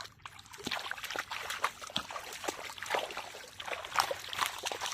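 Muddy pond water splashing and trickling in many small, irregular splashes.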